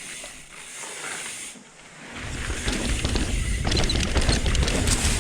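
Mountain bike rear hub ratcheting as the wheel coasts, then from about two seconds in a loud rumble of tyres rolling over the dirt trail with chatter and rattles from the bike, picked up by a microphone mounted by the back wheel.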